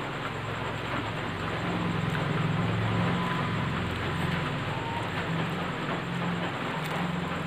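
Heavy rain falling steadily, with a low rumble that swells about a second and a half in and fades near the end.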